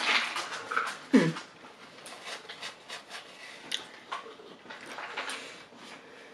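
Close-up mouth sounds of a person chewing a bite of flaky Yorkshire pudding: soft wet clicks and smacks. Near the start there is a short, falling hum from the voice.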